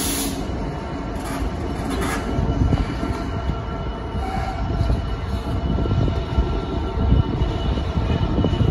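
DB Cargo Class 66 diesel-electric locomotive hauling a train of hopper wagons as it comes past. Its EMD two-stroke V12 diesel runs over the rumble of wheels on the rails, growing a little louder as it draws near.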